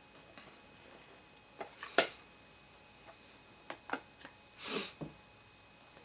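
Plastic golf discs being handled and set down: a few sharp clacks, the loudest about two seconds in and a quick pair near four seconds, then a short swishing hiss.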